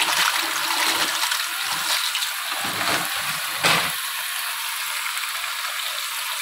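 Water rushing steadily, with a brief louder burst about three and a half seconds in.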